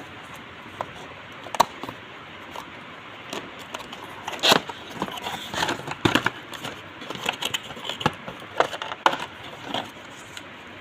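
Irregular clicks and knocks from hands handling a laptop and its removable battery, thickest in the second half, over a steady hiss.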